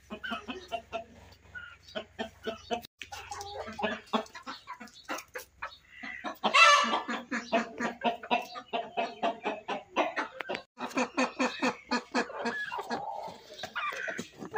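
Chickens clucking in a quick run of short calls, louder for a moment about six and a half seconds in.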